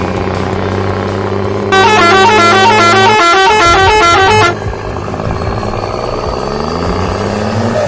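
A multi-tone musical bus horn plays a short repeating tune for about three seconds, loud over a steady engine drone. After it stops, the engine note rises in pitch as it revs up.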